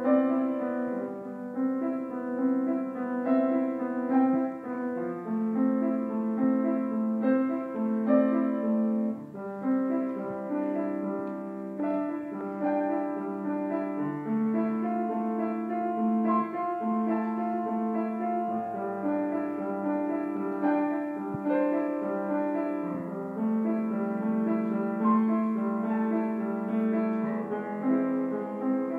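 Solo grand piano playing a steady stream of notes and chords in the middle register, with a few low bass notes sounding about halfway through.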